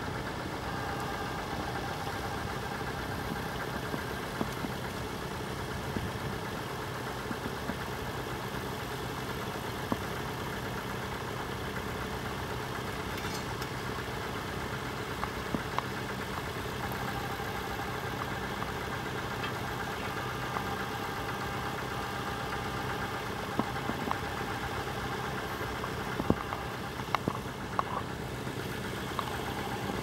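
An engine running steadily, with a fainter higher drone that fades out a few seconds in and comes back about halfway through, and a few sharp clicks near the end.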